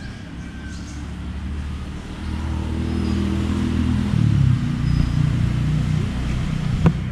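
A motor engine running, getting louder from about two seconds in and changing pitch around four seconds. A single sharp click comes near the end.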